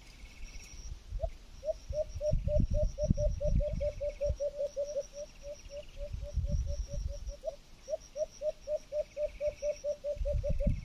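An animal's short calls repeated rapidly, about five a second, with a brief break about three-quarters of the way through. Insects trill faintly behind it, and low rumbling bursts come and go.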